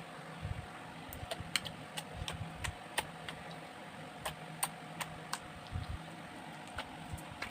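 Slime being kneaded and mixed by hand, giving irregular sticky clicks and small pops, a few a second, over a faint steady hum.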